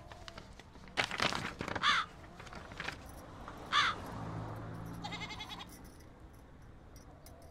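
Crows cawing a few times, then a bleating animal call of about two seconds, about four seconds in.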